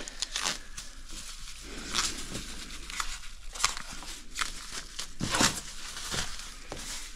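Thin plastic masking film crinkling and rustling as hands pull and fold it over a car bumper, in an irregular run of rustles with a few louder crinkles.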